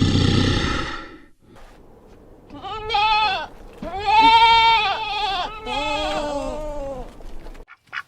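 Goat bleating: three wavering bleats, each about a second long, after a loud rough animal call at the start.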